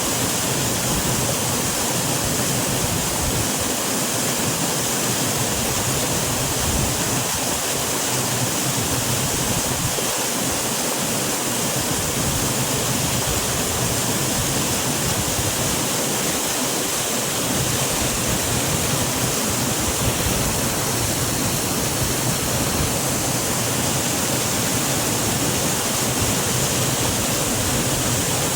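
Small upland waterfall splashing and rushing steadily, an even, unbroken wash of falling water.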